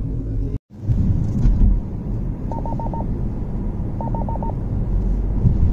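Steady low road rumble inside a moving car's cabin. It cuts out for a moment just after the start, and twice comes a quick set of four short electronic beeps, about a second and a half apart.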